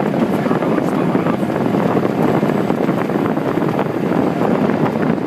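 Blizzard wind blowing hard across the microphone: a loud, steady rushing noise.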